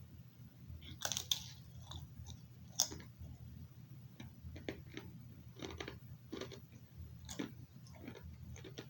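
A man chewing baked Parmesan garlic and herb pita chips, crunching them repeatedly; the sharpest crunches come about a second in, near three seconds and about seven seconds in, with smaller crunches between.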